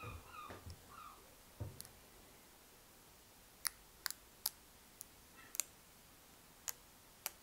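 Light, sharp clicks, about seven at irregular intervals in the second half, from small hand work while a decal is placed and pressed onto a painted brake caliper. A few faint rustles and a soft thump come about a second and a half in.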